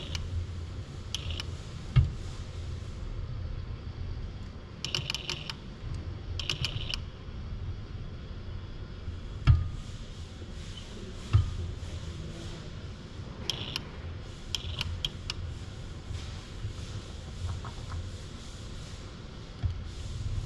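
Robot workcell sounds as a Universal Robots UR10e arm with a gripper handles small metal bolts: a steady low hum, clusters of quick metallic clicks, and a few single sharp knocks.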